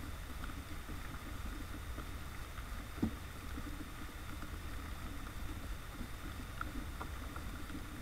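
A Japanese badger gives one short, sharp sneeze about three seconds in, over a steady low background rumble.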